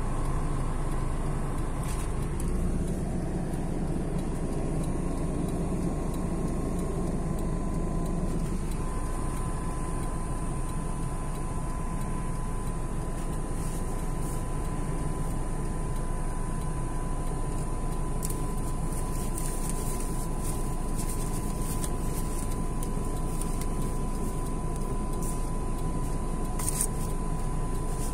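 Steady cabin noise inside a stationary car with its engine running: an even low rumble with a thin steady high tone over it.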